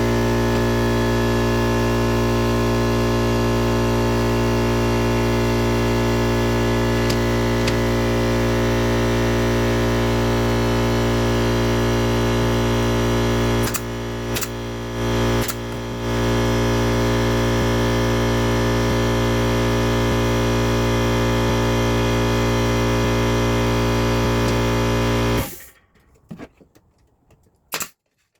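Loud, steady, distorted electronic buzz made of many held tones over a deep hum, unchanging except for a brief dip midway. It cuts off suddenly near the end, leaving near silence with a few faint clicks.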